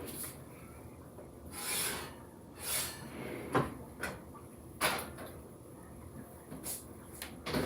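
Kitchen handling sounds as baked dishes are taken out of the oven: two short scraping swishes and a few sharp knocks of dishes and oven parts being moved and set down.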